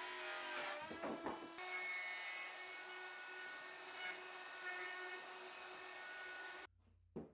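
Electric woodworking power tool motor running with a steady whine over a hiss, changing abruptly about one and a half seconds in and cutting off suddenly near the end, followed by a single short knock.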